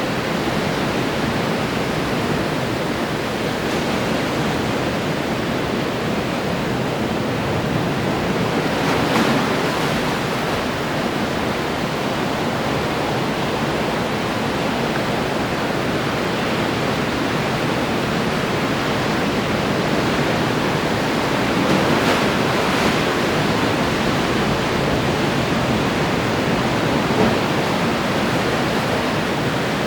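Ocean surf: a steady rush of waves breaking and washing ashore, swelling louder as larger waves break about nine seconds in and again around twenty-two seconds.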